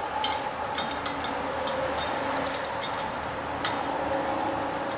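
Light, irregular metal clicks and clinks of a bolt and nuts being fitted through a steel bracket by hand.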